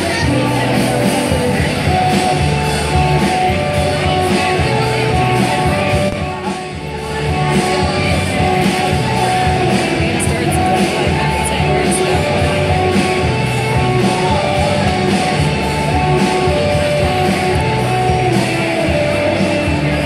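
Live indie rock band playing a song on electric guitar, bass and drums, with singing. It briefly drops in loudness about seven seconds in.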